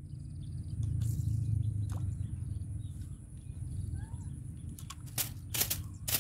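Outdoor fishing ambience: a steady low rumble with a few faint bird chirps, and a light plop as the baited fishing rig drops into the water about two seconds in. Several sharp clicks or knocks come near the end.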